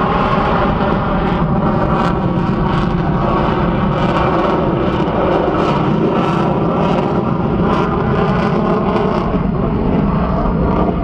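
Boeing F/A-18E/F Super Hornet's twin General Electric F414 turbofans running, a loud steady jet roar.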